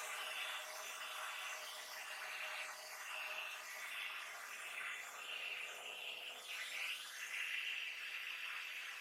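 Hair dryer running, a steady rush of air over a motor hum, the air noise swelling and dipping every second or so.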